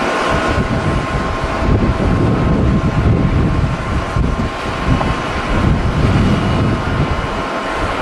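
Strong wind buffeting the microphone in gusts, heaviest through the middle, over the steady whine of airliner jet engines at low thrust as the jet taxis.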